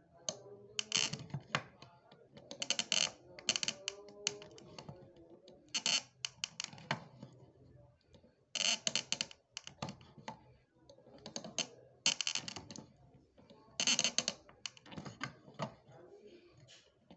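Steel hand tool scraping and clicking against the metal bezel of a silver ring as the bezel is worked over the stone, in short bursts of quick strokes every second or two.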